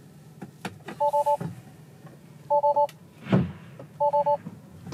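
Tesla in-cabin warning chime: three groups of three quick two-note beeps, repeating about every one and a half seconds, over a low hum. About two-thirds of the way through there is a louder dull thump.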